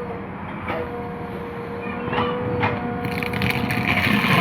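JCB 3DX backhoe loader at work: the engine runs under a steady high whine, with a few knocks in the first half and a rushing hiss near the end.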